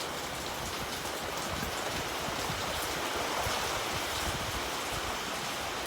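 Heavy rain drumming steadily on a metal roof, a dense even patter of drops on the sheet metal overhead.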